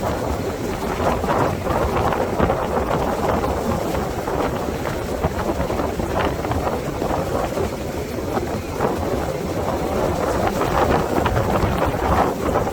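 Strong wind buffeting the microphone in a steady low rumble that gusts up and down, over ocean surf washing on the beach.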